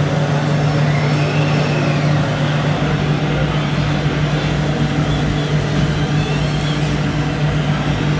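Scale RC Volvo three-axle tipper truck running with a steady engine-like drone while its dump bed tips up.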